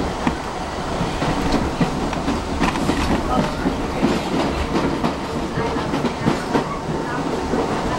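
New York City Subway 7 train running at speed, heard from inside the car: a steady rumble with the wheels clicking and clacking on the track.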